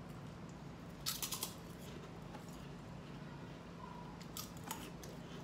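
Light clicks of eating utensils handling food: a quick run of several taps about a second in and two single clicks near the end, over a faint steady low hum.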